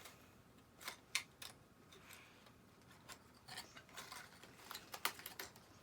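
Faint, irregular clicks and light rustling from small fishing tackle being handled, about half a dozen sharp ticks spread across a few seconds.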